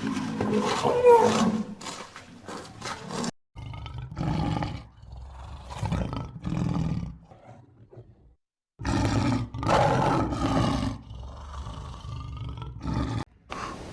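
Repeated deep roaring calls from a large animal, in short segments with abrupt cuts between them.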